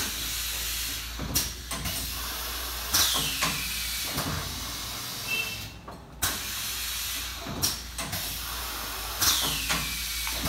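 Moriarty 18 x 24 inch flatbed screen printer cycling, its screen frame and carriage moving with repeated knocks and clunks over a steady hiss. A falling whistling sweep comes about three seconds in and again near the end.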